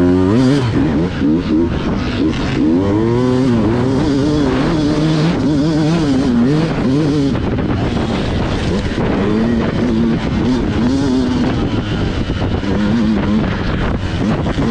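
Dirt bike engine being ridden hard, its revs climbing and dropping again and again with throttle and gear changes.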